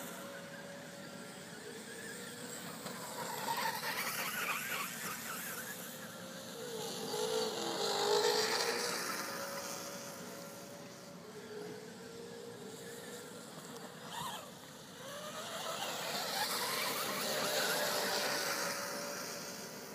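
Electric motors and drivetrains of Traxxas Slash 4x4 radio-controlled short-course trucks whining as they race laps, swelling and fading as they come past and loudest about eight seconds in and again near the end.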